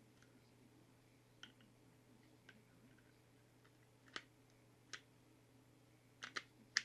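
Sig Sauer SP2022 pistol parts handled during reassembly: a few light, sharp clicks and taps spread out, then a quicker cluster of three near the end, the last the loudest.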